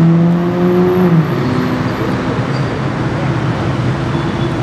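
McLaren 675LT's twin-turbo V8 pulling away, its note rising slightly and then dropping suddenly about a second in, after which it runs at a lower, steady pitch as the car moves off.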